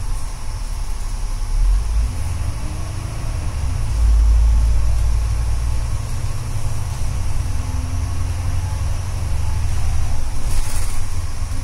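VDL Gemini double-decker bus under way, heard from inside the top deck: a steady low engine drone and road rumble that grows louder about four seconds in.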